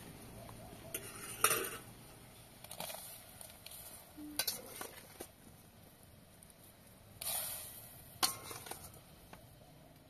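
A metal spoon scooping figs from a stainless-steel bowl and dropping them into a pot of boiling water: a handful of separate clinks of spoon on metal and soft splashes, one longer splash about seven seconds in.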